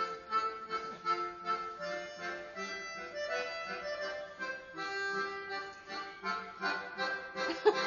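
Background music of held, steady notes and chords, with a short louder burst of noise near the end.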